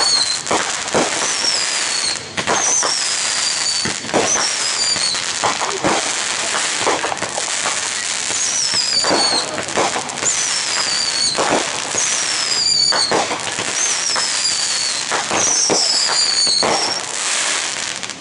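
Fireworks going off: a steady run of bangs and crackling pops, with high thin whistles falling in pitch every second or two.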